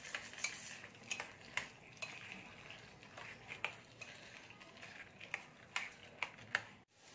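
Metal spoon stirring boondi raita, yogurt with fried chickpea-flour pearls, in a bowl: irregular light clinks and scrapes of the spoon against the bowl, a few a second.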